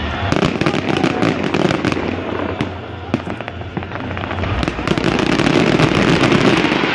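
Fireworks display: dense crackling and popping over a continuous rumble of bursts, easing off around the middle and building up again towards the end.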